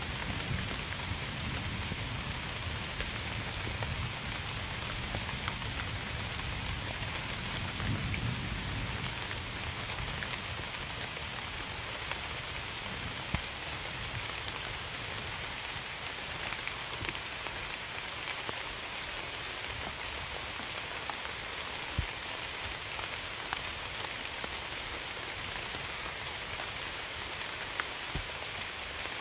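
Steady rain falling, with many individual drops striking sharply through it. There is a low rumble underneath in the first third.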